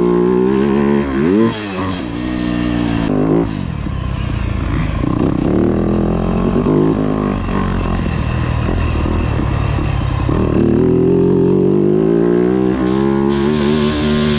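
Yamaha YZ250F's 250 cc single-cylinder four-stroke engine being ridden on the track, revving up and down as the throttle is opened and shut, with a quick rising rev about a second in. Guitar music comes in near the end.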